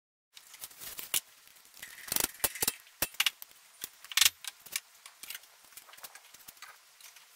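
Scattered light clicks and metallic clinks of small objects being handled, irregular, with louder clatters about two and four seconds in, over a faint steady hum.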